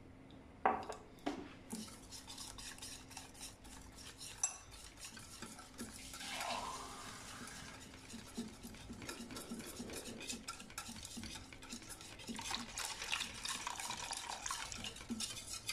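Wire whisk beating a thin flour-and-water batter in a stainless steel bowl, with quick scraping ticks of the wires against the metal that grow busier near the end. A little water is poured in near the end.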